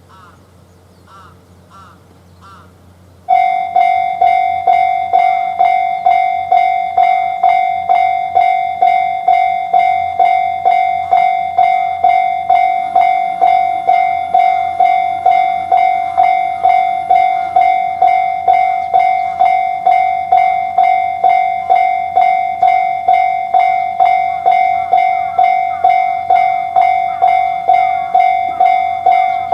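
Japanese railway level-crossing alarm switching on about three seconds in and then ringing its steady "kan-kan" tone at about two strikes a second, the warning that a train is approaching.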